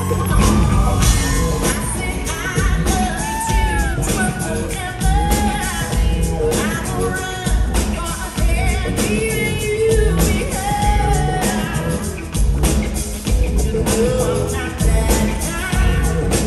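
Live pop-rock band performance: a female lead singer over a steady drum beat and bass, with the full band coming in at the start.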